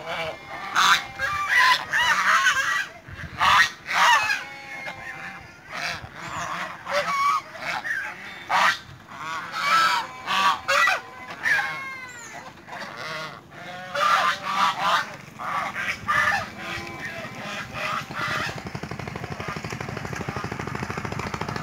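A flock of domestic white geese honking, many calls overlapping in ragged bursts. Near the end the honking dies away and a steady motor rattle takes over.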